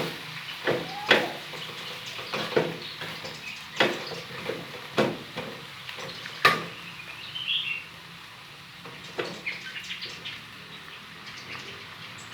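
Spatula knocking and scraping against a frying pan as bamboo shoots are stir-fried in oil, in irregular clanks that thin out after about seven seconds. A bird chirps briefly in the middle.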